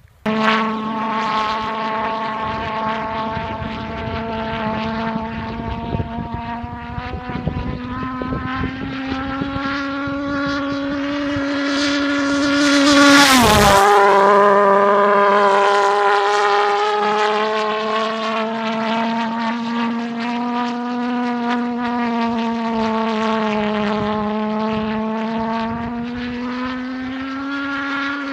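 HobbyKing pulse jet on a Multiplex Funjet Ultra RC plane running in flight with a loud, steady buzz. About halfway through the plane passes close: the buzz swells and its pitch drops sharply as it goes by, then carries on steady, rising a little in pitch near the end.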